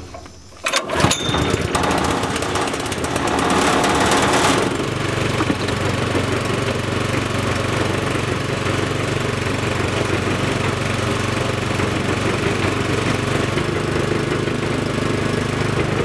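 Small gas engine of a Crown cement mixer started from cold on choke, catching about a second in. It runs rough and noisy for a few seconds, then settles into a steady run.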